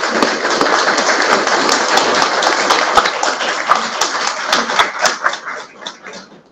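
Applause: many people clapping, thinning out and dying away near the end.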